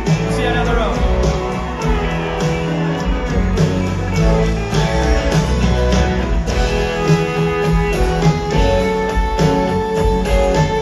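Live country band playing an instrumental passage without vocals: drum kit keeping a steady beat under electric guitars and keyboards.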